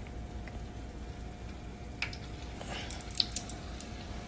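Puff puff dough balls frying in hot oil: faint bubbling with a few sharp crackles, the loudest a little after three seconds in, over a low steady hum.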